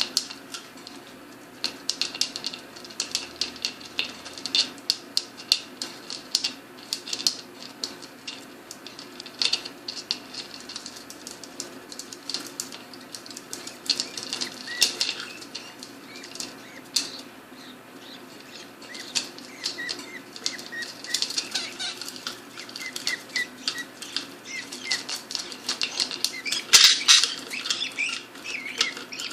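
Pet budgerigars chattering: a dense, irregular stream of quick clicks and short high chirps, loudest in a burst near the end.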